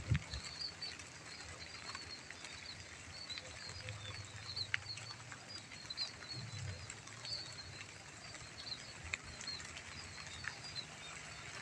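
Light drizzle over rice paddies: a steady soft hiss with scattered sharp drop ticks, and many short high chirps repeating throughout from small animals in the fields.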